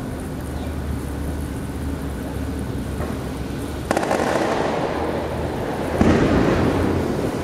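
Two loud fireworks bangs about two seconds apart, each trailing into a long crackling echo, over a steady low hum.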